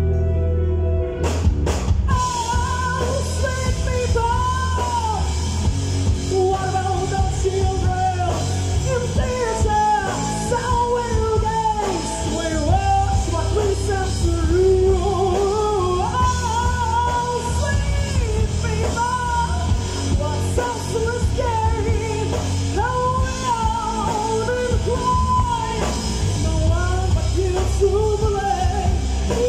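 Live rock band: a woman sings a melody over electric guitars, bass guitar and drums. A held chord gives way to the full band coming in with a sharp hit about a second in.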